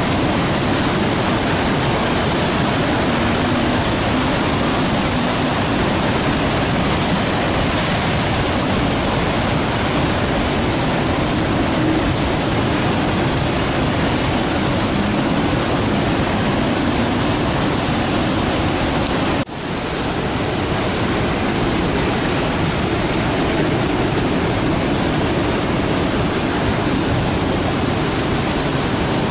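Heavy surf breaking and washing over coastal rocks: a loud, steady roar of churning white water. It briefly drops out about two-thirds of the way through.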